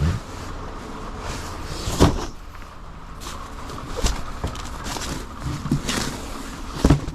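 Boxed food cases being shifted and set down on a pallet, giving four knocks, the loudest about two seconds in, over steady background noise.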